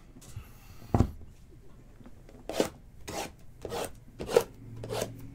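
Handling noise at a tabletop: a sharp click about a second in, then five short rubbing or scraping strokes about half a second apart.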